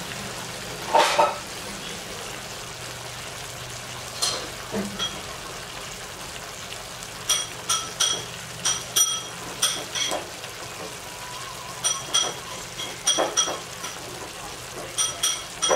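Pork chops in adobo sauce simmering in a pan, a steady sizzle and bubble. From about halfway through, a series of short ringing metallic clinks comes roughly twice a second, in clusters.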